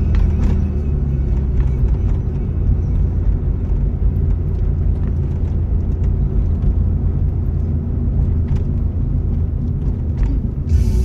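Low, steady rumble of a car driving slowly, heard from inside the cabin, with music playing along with it.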